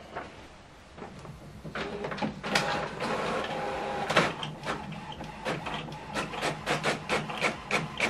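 HP OfficeJet Pro 8135e inkjet printer running a test-page print job. It is quiet for the first second or so, then its motors whir as it takes in the paper, followed by a fast, regular run of clicks, about three a second, as it prints and feeds the page out.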